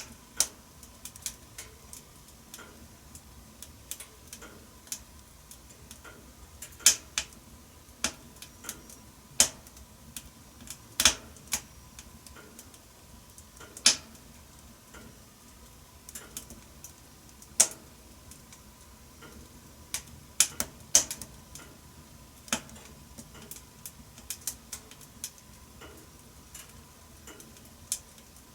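Wood fire crackling in a wood-burning stove: irregular sharp snaps and pops at no steady rhythm, a handful of them much louder than the rest.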